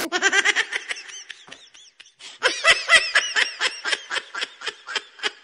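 Someone laughing in a run of quick 'ha' bursts, about five a second. It grows louder about two and a half seconds in and trails off near the end.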